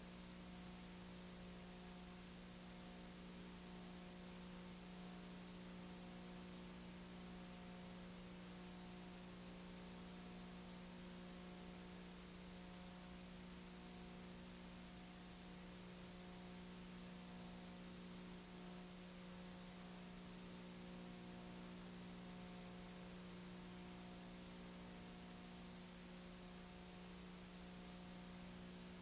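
Near silence: a steady electrical hum with a faint hiss, unchanging throughout, and no game or crowd sound.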